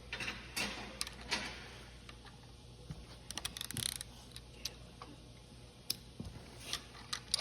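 Irregular light clicks, ticks and small scrapes of hand tools and bolts being worked on a Chrysler flathead six engine block during a rebuild.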